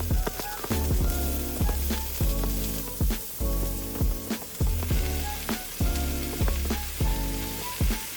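Background music with a steady beat and bass line, over food sizzling as it fries in a pan, with some stirring.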